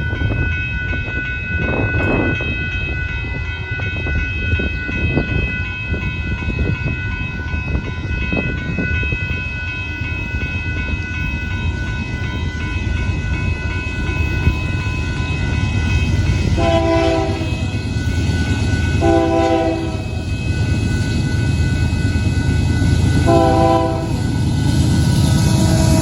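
Union Pacific freight train with hopper cars rolling past in a steady low rumble. The locomotive's horn sounds three blasts of about a second each, in the last third.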